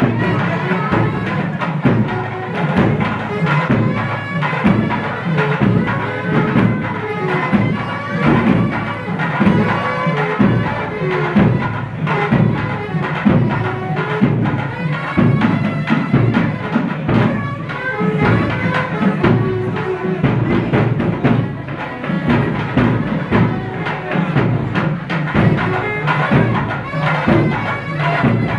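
Traditional Indian wedding music: a reedy wind instrument playing a held, piping melody over a regular percussion beat.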